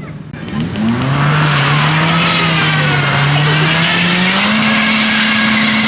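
Drag car's engine revving up about half a second in and holding high and steady, stepping up once more near the end, over the hiss and squeal of spinning tyres, as in a burnout.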